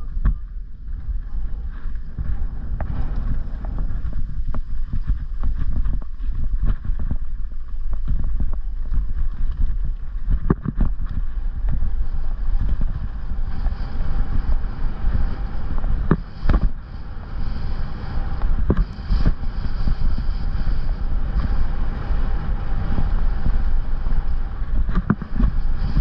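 Mountain bike riding a dirt trail: wind buffeting the microphone over a steady rumble of tyres on dirt, with sharp knocks from the bike now and then as it hits bumps.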